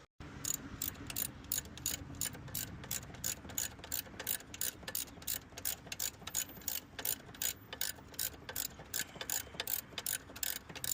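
Socket ratchet wrench clicking in a fast, even rhythm, about four clicks a second, as an alternator mounting bolt is tightened.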